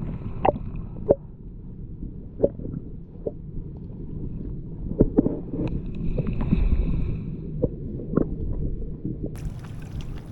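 Wind rumbling on an action camera's microphone, with scattered sharp knocks and clunks of handling on the boat. About nine seconds in, a high hiss comes in suddenly.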